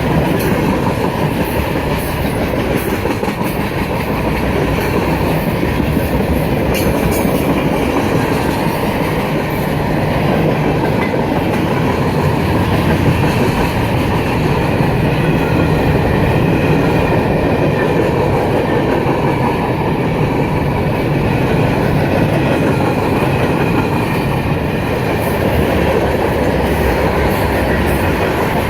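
Freight train cars rolling by at steady speed, their wheels clattering over the rails in a continuous rumble.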